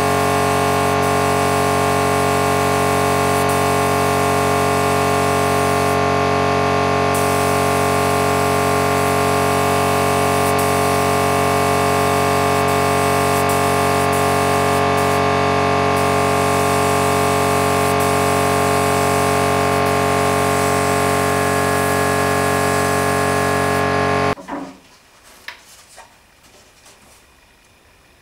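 A machine running at an unchanging pitch, a dense steady hum of many tones that cuts off abruptly about 24 seconds in. A few light knocks follow near the end.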